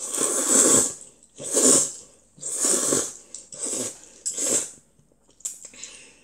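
A child slurping jjamppong noodles: five long, loud slurps about a second apart, then a few softer short smacks and clicks near the end.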